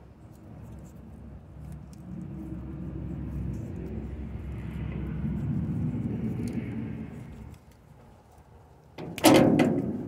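A motor vehicle passing by: a low rumble that grows louder, peaks about halfway through and fades away. About a second before the end comes a short, loud rasping noise.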